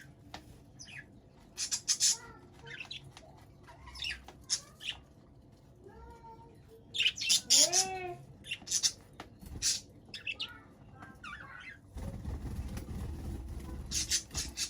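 Budgerigars chirping and squawking in short, sharp bursts, with a warbling call that rises and falls near the middle. A low rumble joins near the end.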